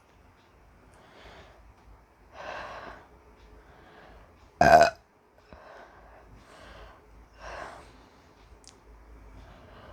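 A woman burping after drinking Coke, gas from the carbonated drink: one loud, short burp about halfway through, with several softer sounds before and after it.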